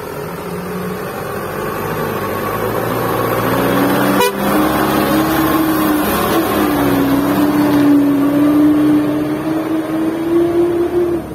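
Fully loaded Mitsubishi dump truck's diesel engine pulling away under load, growing louder. About four seconds in there is a sharp click, then a strong, steady droning note, drifting slightly in pitch, until it cuts off near the end.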